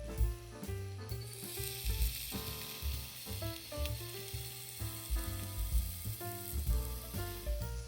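Food sizzling as it fries, starting about a second in and stopping just before the end, over background music.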